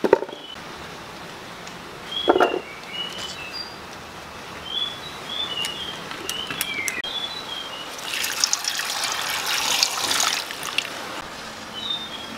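Water poured into a metal pot of cut cassava for about two seconds near the end, with small birds chirping in short repeated notes throughout. A single knock about two seconds in.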